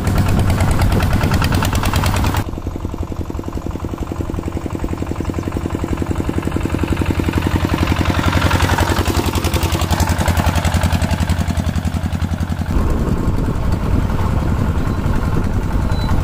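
Kubota two-wheel tractor's single-cylinder diesel engine chugging steadily under load as it pulls a loaded trailer, with fast, even exhaust beats. The level drops suddenly about two seconds in and jumps back up near the end.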